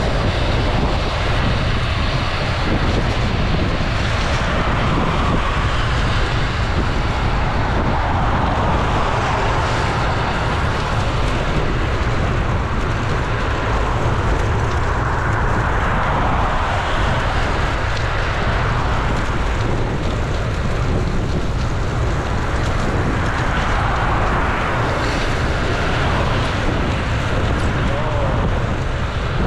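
Steady wind buffeting on a bicycle-mounted camera's microphone while riding, over the hiss of car tyres on wet asphalt that swells several times as vehicles pass.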